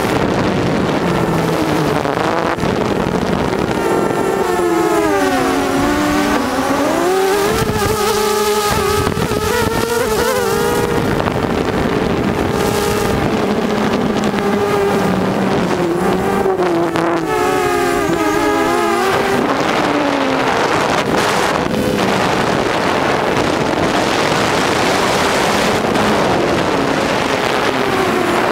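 Small camera drone's motors and propellers whining steadily in flight, the pitch dipping and rising twice as the drone changes speed.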